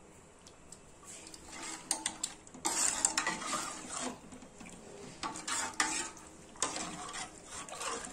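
Metal spoon stirring thin, watery dal in a metal pot, scraping and clinking against the pot in uneven bursts. It is quiet for the first couple of seconds, then the stirring gets busier.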